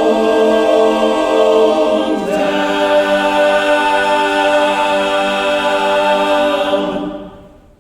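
Men's barbershop chorus singing a cappella, holding the long closing chord of a song. The chord moves to a new voicing about two seconds in, then is released and fades out near the end.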